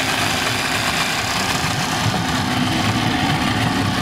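Johnson 85 hp V4 two-stroke outboard motor idling steadily, just started from cold with the choke being eased off.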